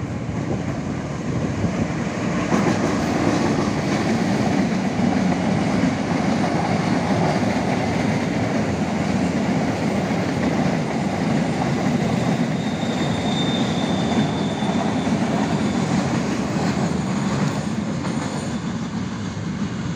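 Ballast hopper wagons of a freight train rolling past on the rails behind a diesel locomotive, a steady rumble and clatter of wheels over the track. A brief high wheel squeal rises partway through, and the noise eases near the end as the last wagons go by.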